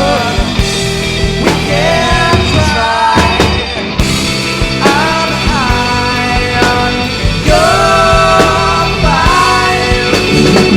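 Rock band playing a song live, with a lead singer over drums and amplified instruments.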